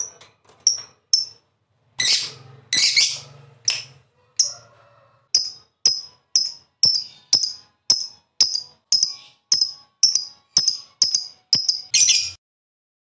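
Lovebird calling: a few loud harsh chirps, then a steady run of short, sharp, high chirps at two to three a second, ending in a brief burst of rapid chatter near the end.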